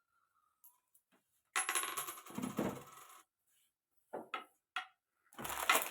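Food containers and items being taken out of a refrigerator, clattering and clinking, then a few light clicks and a heavier knock near the end.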